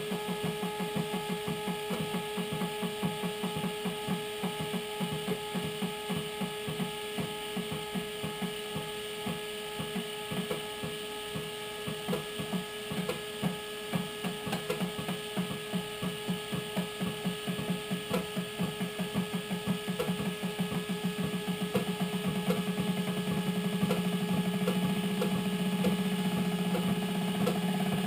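Stepper motors of a homemade four-axis hot-wire foam cutter driving the axes through a cut: a rapid, regular pulsing hum that quickens and merges into a steady hum over the last few seconds, over a constant electrical hum.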